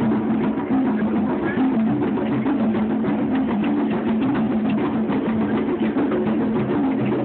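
Several drums played together in a steady, busy rhythm, the strikes packed closely without a break.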